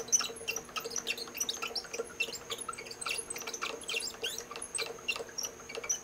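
Cross slide of a South Bend lathe being cranked forward by its cross-feed handwheel, giving many light, irregular metal clicks and ticks. A faint, steady high-pitched tone runs underneath.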